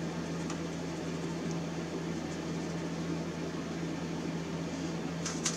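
Electric fan heater running with a steady low hum over an even rush of air.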